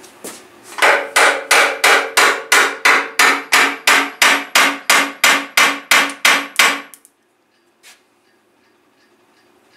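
A hammer strikes the oil pan of a Mercedes M110 engine about twenty times in a steady run, around three blows a second, each with a short metallic ring. The blows are meant to break the pan loose from the sealant that is holding it on.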